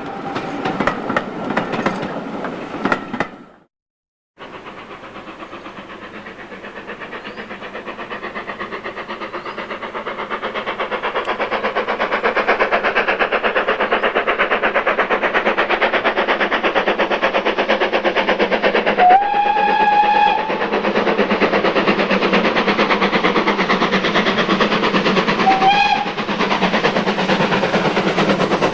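A steam locomotive's whistle stops as a train clatters past. Then, after a cut, another steam locomotive's rapid, steady exhaust beats grow louder as it approaches. It sounds its whistle, rising into a held note for about a second and a half, and later gives one short toot.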